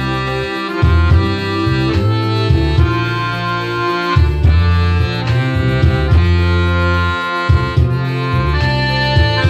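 Hohner piano accordion playing a tune, with held reedy notes changing about every second over strong low bass notes.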